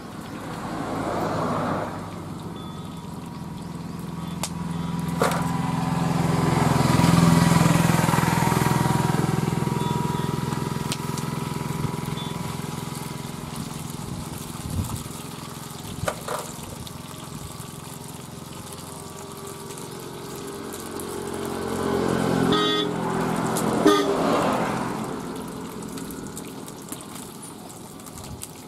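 Motor vehicles pass on a nearby road: engine hum swells and fades, loudest about seven seconds in, and again near the end with a short horn-like tone. Underneath, oil sizzles steadily as fish deep-fries in an iron kadai, with an odd metallic knock from the ladle.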